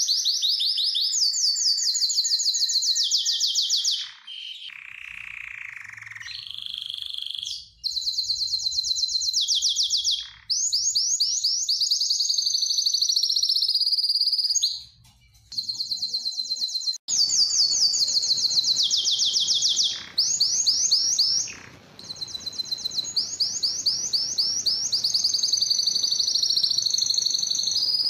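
Male domestic canary singing: long runs of fast, high-pitched trills broken by short pauses, with a softer, lower phrase about four to seven seconds in.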